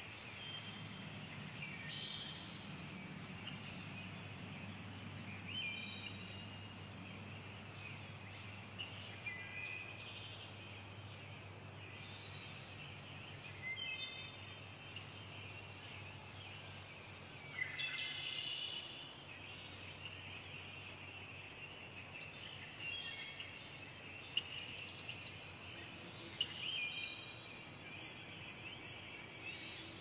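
Insects trilling in a steady, high-pitched chorus, with short bird chirps every few seconds.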